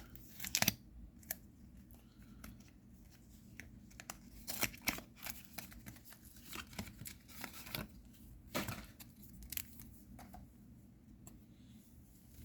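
Trading-card booster pack wrapper being torn open and crinkled, with cards handled: a series of short, irregular rips and rustles.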